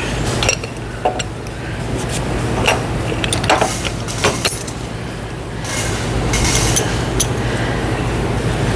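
Scattered sharp metallic clinks and taps from a CV axle and hand tools being handled at a bench vise, over a steady low hum. A longer hissing, rustling noise comes in about six seconds in.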